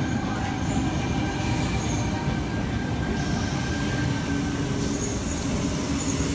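Sydney Trains Tangara (T set) electric train running in along the platform as it arrives: a steady rumble with faint whining tones from its running gear.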